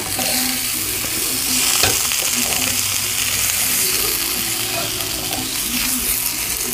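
Potatoes frying in a pan, a steady, hissing sizzle.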